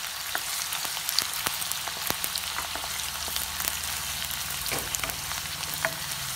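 Sliced onions sizzling in hot oil in a kadai as they fry toward browning, with scattered pops and the spoon clicking and scraping against the pan as they are stirred.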